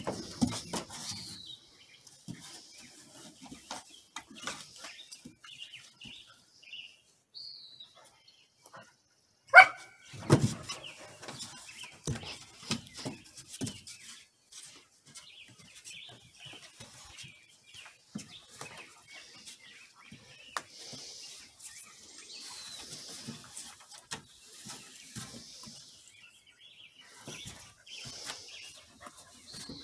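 Border collie puppies play-fighting on a wooden deck: scuffling paws and bodies knocking on the boards, with one short, high yelp about ten seconds in.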